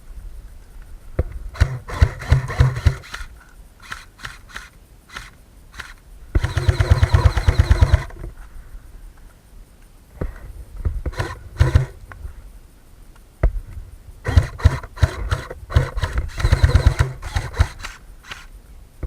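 Airsoft gun firing on full auto in several rapid bursts of clicking shots, the longest about six seconds in and lasting under two seconds.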